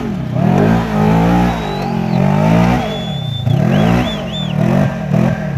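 Side-by-side UTV's engine revving hard under load as it climbs a steep dirt slope. The pitch rises and falls in several surges, with a long high stretch in the first half and shorter bursts of revs later on.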